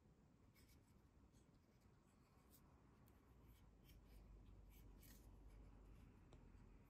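Near silence with faint, scattered light clicks and rubs: fingers handling and turning a small carved zelkova-wood sculpture.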